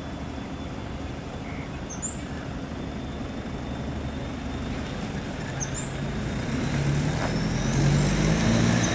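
Boeing 737-400's CFM56-3 jet engines running and growing steadily louder, with a high whine rising in pitch over the last three seconds.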